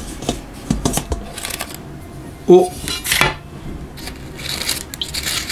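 Trangia aluminium mess tin and its lid clinking and knocking against a stainless steel mixing bowl as the tin is handled and opened, with a loud clank about two and a half seconds in. Baking paper rustles near the end as the lid comes off.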